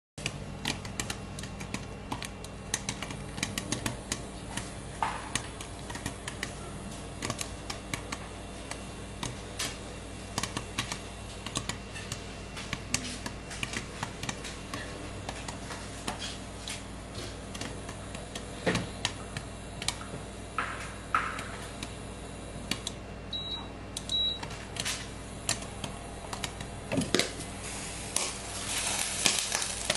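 Popcorn kernels popping inside a covered stainless-steel casserole pot with a glass lid: an irregular stream of sharp pops and taps against the lid over a low steady hum. Two short high beeps come a little past the middle, and there is a louder rush of noise near the end as the lid is lifted.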